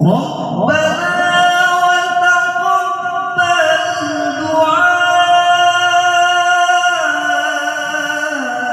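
A male qari's voice reciting the Quran in melodic tilawah style, drawing out one long, ornamented note that steps up and down in pitch several times.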